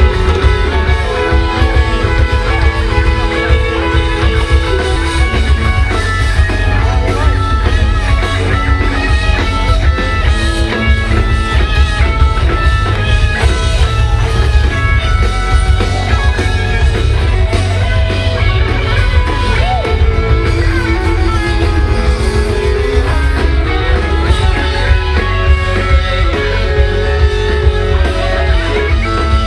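Loud live rock band playing through a festival PA, recorded from within the crowd: guitar lines over a heavy, booming bass and a steady beat.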